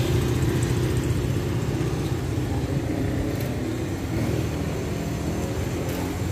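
Wind buffeting the phone's microphone: a steady, loud low rumble.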